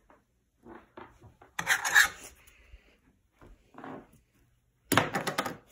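Rubbing and scraping handling noises as objects are picked up and moved by hand: several short bursts, the loudest about two seconds in and again near the end.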